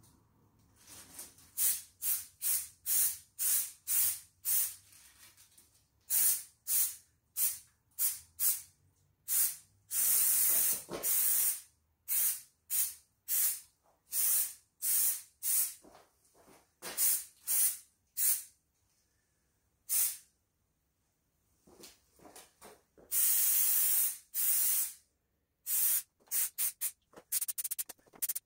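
Aerosol can of Ez Liner bedliner spray being sprayed in many short hissing bursts, most under a second long, with a few longer passes of one to two seconds and a short pause about two-thirds of the way through.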